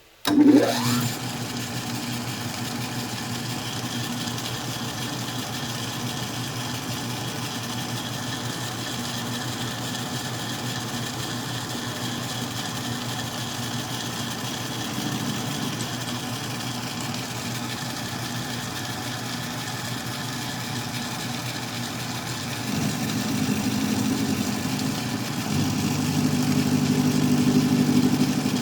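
Metal lathe's electric motor switched on: the pitch rises as it spins up over the first second, then it runs steadily. It grows louder and heavier about two-thirds of the way through and again near the end.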